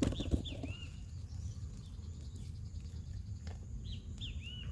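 A bird calling twice, each call a quick run of three high, arched chirps, one at the start and one near the end, over a steady low rumble of outdoor background noise.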